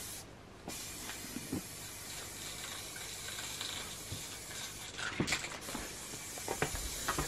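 Aerosol spray can of primer hissing steadily as it is sprayed onto metal door hinges, with a few faint knocks.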